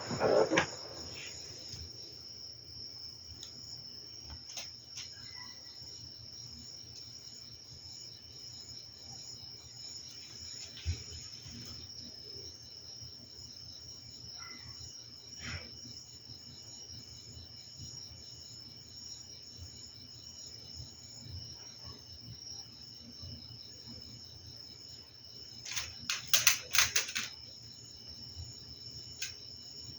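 Electric fan running with a steady low hum under a steady high-pitched trill, with a few scattered clicks and a brief burst of clattering knocks near the end.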